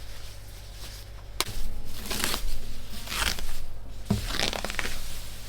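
Packing material crackling and tearing in several short bursts, with a sharp click about a second and a half in, as the wrapping is pulled off an acoustic guitar's headstock.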